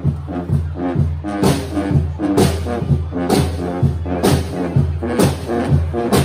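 Guggenmusik carnival band playing: loud brass over a steady bass line and drums, with a crash on the beat about once a second.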